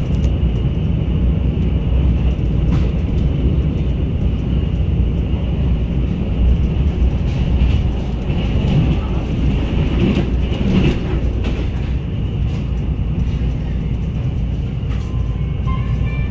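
Steady low rumble of a passenger train running along the track, heard from inside the carriage, with a few light clicks.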